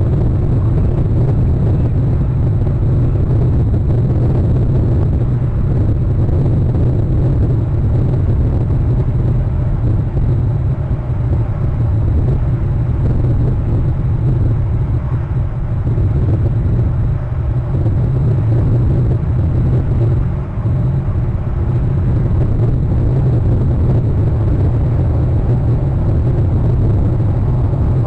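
Steady low rumble throughout, with only small dips in level.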